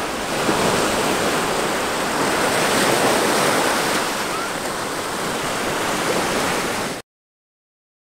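Small waves breaking and washing up on a sandy beach, a steady surf noise that cuts off abruptly about seven seconds in.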